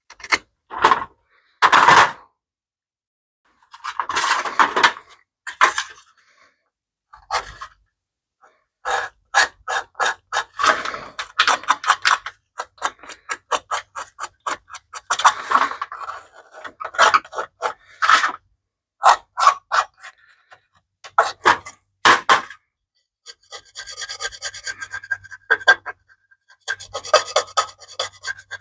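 Hand pick and scraper working caked grime off a sheet-metal heat shield: clusters of short, quick scraping strokes with brief pauses between them.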